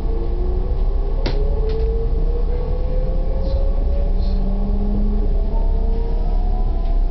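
Class 422 electric multiple unit heard from inside the car, gathering speed: a steady low rumble from the running gear with the traction drive's whine slowly rising in pitch, and a single sharp click about a second in.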